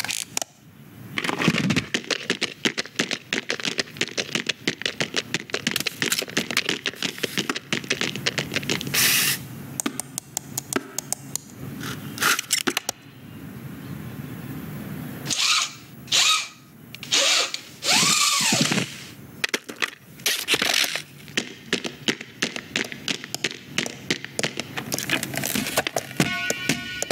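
Animated-film sound effects: a dense, quick run of small clicks, clacks and scrapes, with a few louder noisy bursts and a short tone that rises and falls near the middle.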